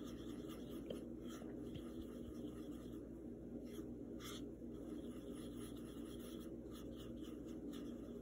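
Paintbrush mixing acrylic paint on a plastic palette plate: faint, short scratchy strokes, a few seconds apart, over a steady low hum.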